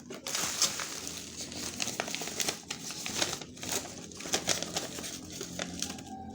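Packaging being handled during an unboxing: crinkling and crackling, with a few sharper crackles like plastic being pulled or torn, stopping just before the end.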